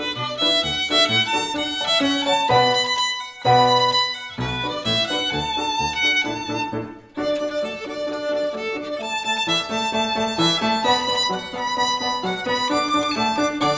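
Violin playing a bowed melody with grand piano accompaniment, with a brief break in the phrase about seven seconds in.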